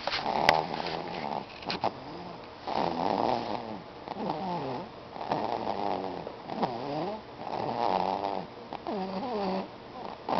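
Snoring of a two-month-old: a rasping snore on each breath, about every two and a half seconds, with rising and falling pitched sounds between the snores. A sharp click just after the start.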